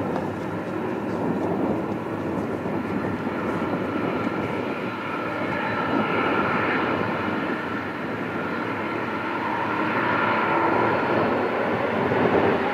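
Boeing 747-400's four turbofan engines running with a steady rumble and a thin whine as the jet moves slowly along the runway, growing gradually louder toward the end.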